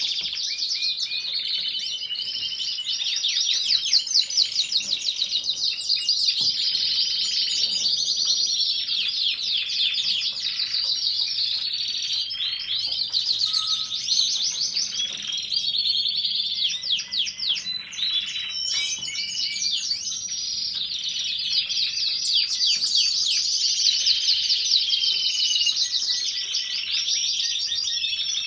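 Gloster canaries singing: long, unbroken runs of rapid rolling trills and chirps that overlap one another.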